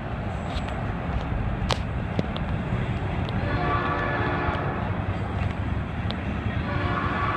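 Locomotive air horn sounding two long blasts, a chord of several steady tones, the first about midway and the second starting near the end: a train whistling for the grade crossing as it approaches. A steady low rumble runs underneath.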